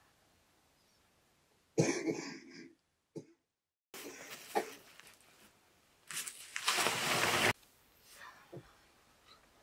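A person coughing in a few bursts: one about two seconds in, a smaller one around four to five seconds, and a longer one lasting over a second around six to seven seconds in. The sound drops to dead silence for about a second after the first burst.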